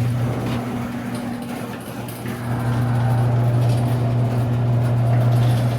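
Electric garage door opener running with a steady low hum as the door travels open.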